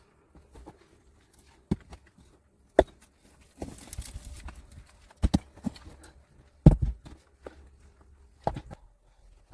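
Hard knocks of stone on stone, five sharp ones spaced a second or two apart, with a second of scraping in the middle as a rock is shifted.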